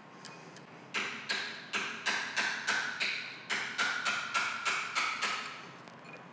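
Hammer tapping a brass drift punch against the end of a Monarch lathe's compound slide, driving a part out. About fourteen strikes at roughly three a second, starting about a second in, each with a short metallic ring.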